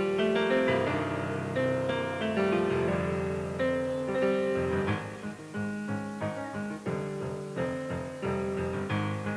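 Piano music played in quick, separate notes over a lower accompaniment.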